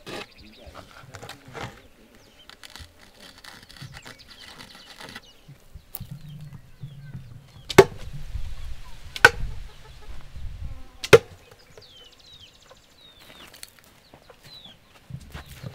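Three sharp strikes about a second and a half apart, with birds chirping near the end.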